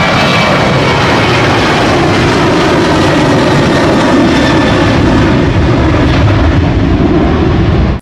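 Twin-engine jet airliner (Boeing 737) on its takeoff run, engines at takeoff thrust: a loud, steady roar, with a whine of fan tones that fades in the first second or so.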